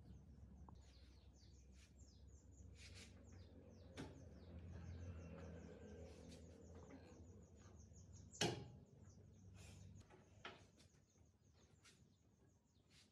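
Faint bird chirping: many short, high chirps in quick runs, over a low hum. One sharp click about eight and a half seconds in.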